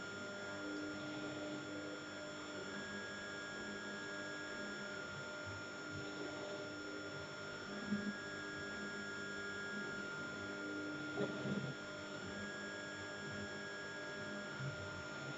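Steady electrical hum made of several steady tones, with two further tones switching on and off in turn every couple of seconds, and a few faint knocks about eight and eleven seconds in.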